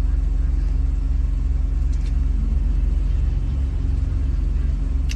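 Steady low rumble of a vehicle's engine, heard from inside the cab.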